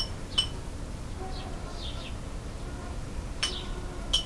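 A metal spoon clinking sharply against a small ceramic plate four times while food is served, two clinks near the start and two near the end. Short, falling bird chirps sound in the background.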